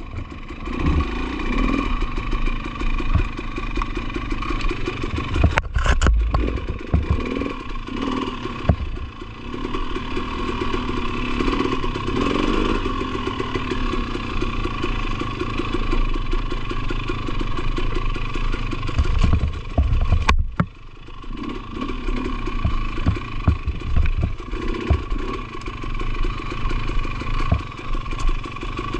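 2020 KTM 300 XC-W TPI's single-cylinder two-stroke engine running at trail-riding speeds, its revs rising and falling as the throttle is worked. The sound cuts out briefly twice, about six seconds in and about twenty seconds in.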